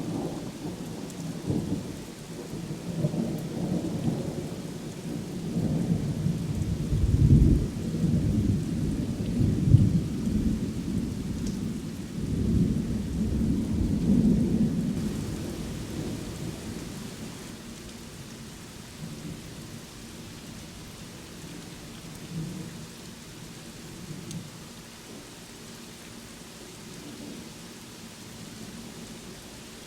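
Steady rain falling with rolling thunder: long low rumbles swell and peak from a quarter to halfway through, then die away, leaving mostly the hiss of the rain.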